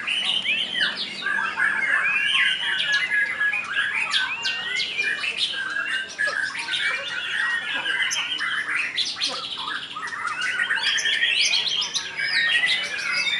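Several caged white-rumped shamas (murai batu) singing at once: a dense tangle of overlapping whistles, chirps and quick clicking notes.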